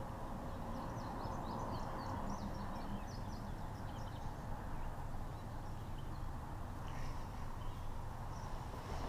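A songbird singing: a quick run of short high chirps in the first few seconds and a few more near the end, over a steady low rushing noise.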